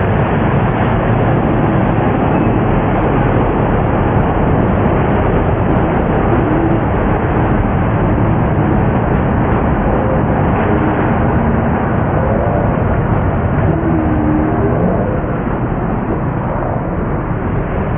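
Engines of a pack of winged sprint cars racing flat out, a loud dense steady engine noise with a few faint rising and falling pitches about two-thirds of the way through.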